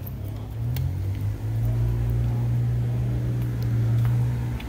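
A vehicle engine running close by with a steady low hum. Its pitch rises slightly and it grows louder about a second in, then it drops off just before the end.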